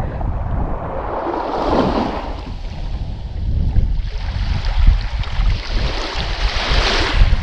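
Shallow seawater sloshing and small waves washing at the shoreline as a fish is released by hand in ankle-deep water, with wind rumbling on the microphone.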